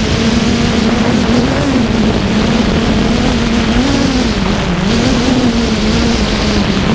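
Enclosed-propeller multirotor drone's motors and props humming, the pitch wavering up and down as the flight controller keeps changing motor power against gusts of about 45–50 mph. Heavy wind noise on the onboard camera's microphone runs under the hum.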